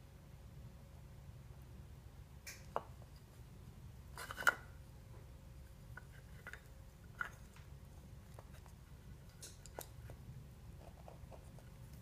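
Small wooden puzzle blocks and a treat box knocked and nudged on a tile floor by an Angora rabbit's nose: a few sparse light clicks and knocks, the loudest a short scrape about four and a half seconds in.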